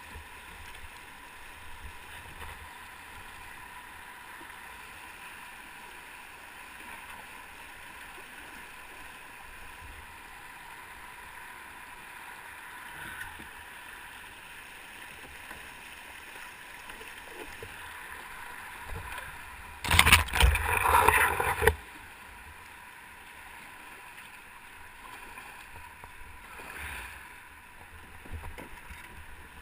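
Rushing whitewater of small river rapids streaming around a canoe, a steady rush. About twenty seconds in, a loud burst of noise lasts about two seconds.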